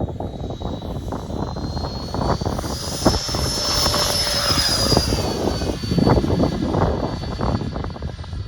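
Electric ducted-fan motor of a Freewing F-4 Phantom RC jet whining at takeoff throttle, the high whine rising in pitch and loudness to a peak about four seconds in, then easing down a little. Gusty wind buffets the microphone throughout.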